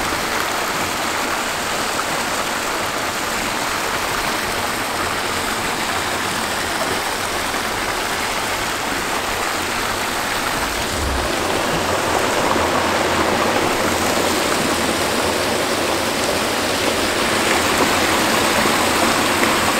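Steady rush of hot geothermal water flowing down a steaming silica channel, growing a little louder about halfway through.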